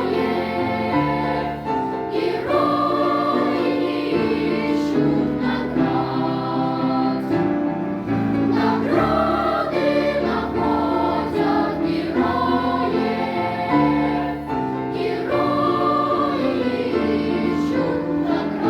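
Choir singing a song, many voices together holding and changing notes.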